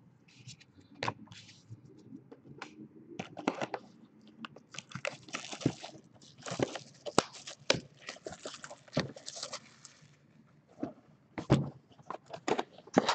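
Handling of trading-card packaging: a foil card-pack wrapper crinkling and a cardboard card box being picked up, set down and opened, making a run of irregular crackles, scrapes and taps, busiest in the middle.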